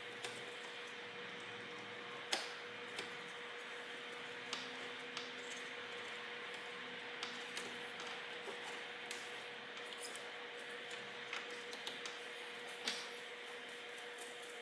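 Scattered light clicks and knocks of hands handling plastic and metal parts inside a car's front end, with a sharper click about two seconds in and another near the end, over a steady hum with a faint constant tone.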